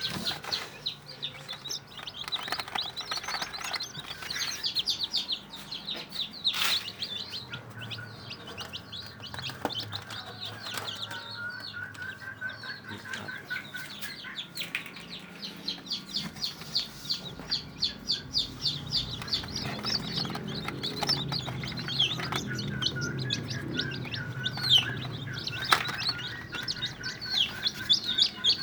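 Newly hatched kampung super chicks peeping constantly: many rapid, high, downward-sliding cheeps overlapping one another. A couple of knocks, one about seven seconds in and one near the end.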